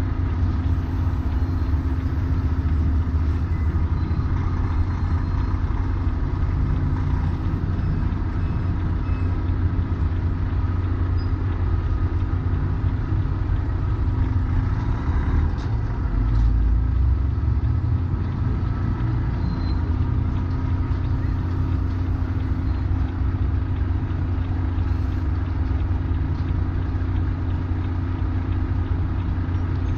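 Heavy truck's diesel engine running at low speed, a steady low rumble that swells briefly about 16 seconds in.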